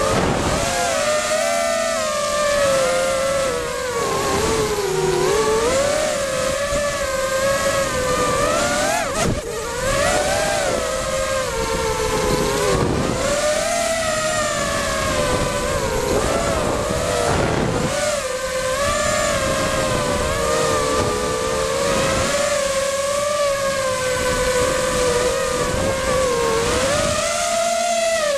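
The four Cobra 2204 2300 KV brushless motors and three-blade 5-inch props of a racing quadcopter, a buzzing whine that rises and falls in pitch with the throttle and dips sharply a few times when the throttle is chopped. It is heard close up from the onboard camera, with air rushing over it.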